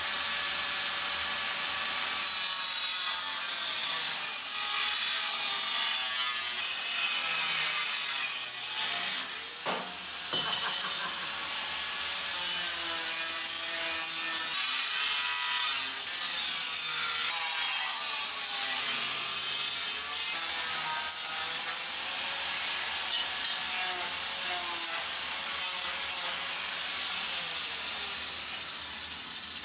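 Electric angle grinder cutting through a slotted steel shelving upright: a steady, high-pitched grinding whose motor pitch sags under load and recovers. It stops briefly about ten seconds in, and after about twenty-two seconds the cut goes on in shorter bursts.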